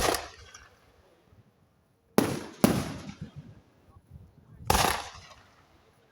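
Aerial firework shells bursting: four sharp bangs, one right at the start, two close together about two seconds in, and one near five seconds, each fading away over about a second.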